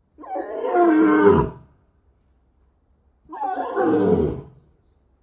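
Two loud, rough animal calls, each about a second and a half long and sliding down in pitch, with a pause of about a second and a half between them.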